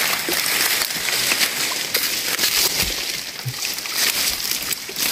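Irregular sloshing and splashing of water in a shallow, muddy stream pool, mixed with rustling of leaves and twigs.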